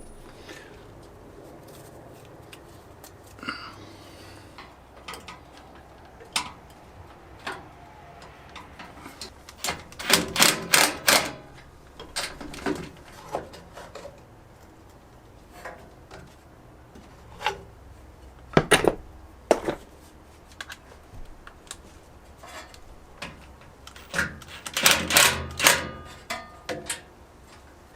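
Scattered clicks, taps and knocks of hard parts and hand tools being handled on a workbench, with louder bunches of rapid clicks about ten, thirteen and twenty-five seconds in and a single sharp knock a little before twenty seconds.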